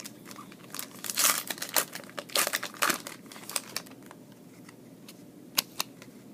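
Foil trading-card pack wrapper being torn open and crinkled, with a burst of rustling in the first few seconds and then a couple of sharp ticks near the end as the cards are handled.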